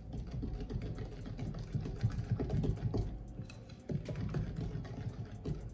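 Wooden spoon stirring thick cornbread batter in a mixing bowl: a steady run of small clacks and scrapes as the spoon knocks and drags against the bowl.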